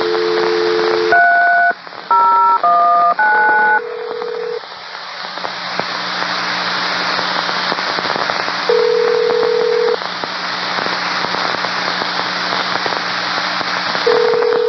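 Railroad two-way radio hissing and crackling with the squelch open. A two-tone dial tone is followed about a second in by four touch-tone (DTMF) digits dialed over the radio, then a low tone that sounds for about a second, three times, roughly five seconds apart.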